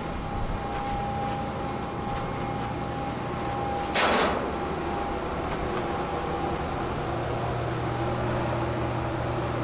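Steady mechanical hum of a vehicle's interior, with a short, loud hiss of air about four seconds in.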